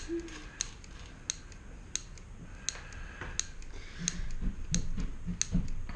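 Mini hand grease gun being pumped, its mechanism clicking about once every 0.7 seconds. It is still purging trapped air before the grease reaches the head.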